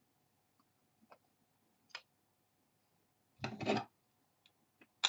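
Hands handling trading cards and their packaging: a few light clicks and ticks, with one short rustling slide about three and a half seconds in and a sharp click at the end.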